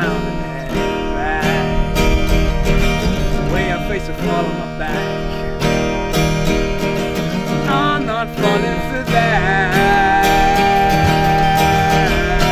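Acoustic guitar strummed in a steady rhythm, with a man singing over it and holding one long note near the end.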